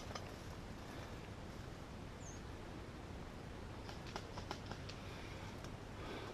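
Quiet outdoor ambience: a low, steady rumbling haze, a brief high chirp about two seconds in, and a handful of faint clicks around four to five seconds in.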